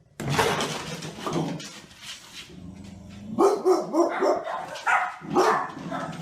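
A dog barking, with a quick run of short barks over the last three seconds.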